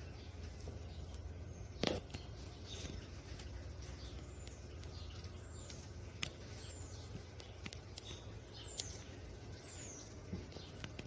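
Small birds chirping outdoors: a series of high, short downward-slurred calls in the middle, over a low steady rumble. A few sharp clicks, the loudest a knock about two seconds in.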